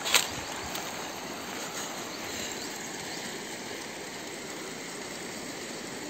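Steady outdoor ambience: an even hiss without any clear tone or rhythm, with one short knock just at the start.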